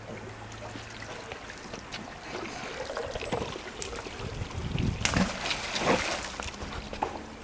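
Canal water sloshing and trickling as a heavy magnet-fishing find, a piece of exhaust, is hauled out, with a few knocks from about five seconds in.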